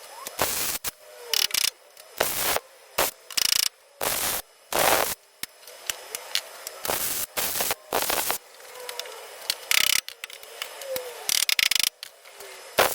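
Welder laying tack welds on car sill steel: about a dozen short bursts of welding noise, each roughly half a second, with brief pauses between them.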